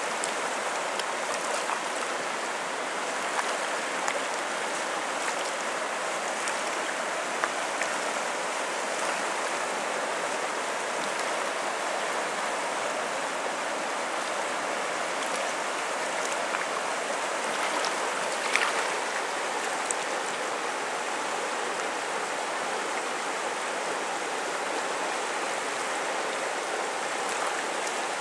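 Steady rushing of a fast, shallow river running over a stony riffle, with a few brief faint ticks now and then.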